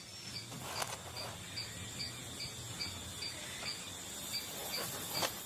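Night insects chirping: a high, even pulse about two or three times a second over a steady high-pitched insect drone.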